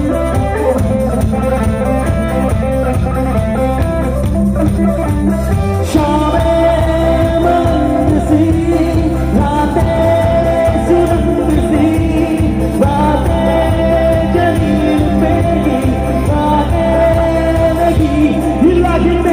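Live band playing an Assamese song over a steady beat through a PA, with a man singing lead and electric guitars.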